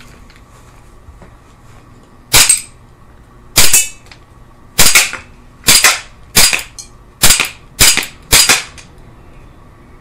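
Eight shots from a Tanfoglio 1911 CO2 blowback BB pistol, each a sharp crack as the gas fires and the slide cycles. They begin about two seconds in, roughly one a second, coming quicker toward the end.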